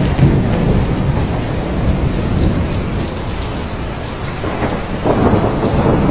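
Thunderstorm: steady rain with low rolling thunder rumbling underneath, the rumble swelling louder about five seconds in.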